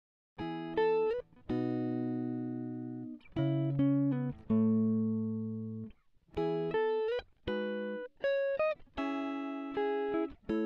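Background music: a plucked guitar playing a slow melody, single notes and short phrases, each note ringing out and fading. It starts about half a second in, after a moment of silence.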